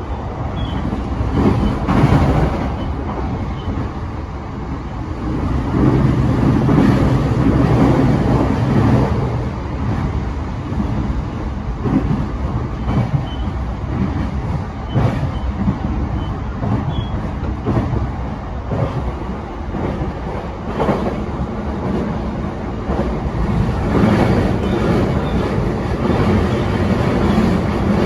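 E233-7000 series electric train running at speed, heard inside the car: a steady rumble of wheels on rail with occasional knocks from the track.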